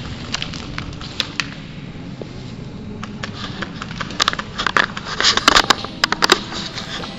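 Footsteps and gear crackling and scraping through dry undergrowth, with scattered sharp cracks that bunch together in the second half.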